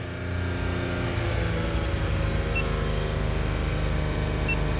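2002 Toyota Highlander engine running steadily at raised revs, held at about 3,000 RPM.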